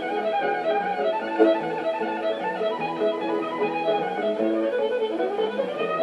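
Violin playing a fast fiddle showpiece in quick runs of notes, with a sliding note about five seconds in.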